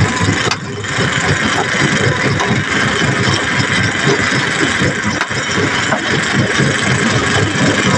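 A vehicle engine running steadily, with a dense, even rumble.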